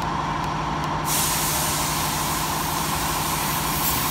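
Steady machinery noise: a constant hum, joined about a second in by a loud hiss.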